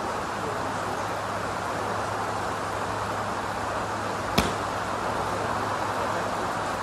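Steady hiss of rain, with one sharp click about four seconds in as a Mizuno MP-33 blade iron strikes a golf ball off a hitting mat.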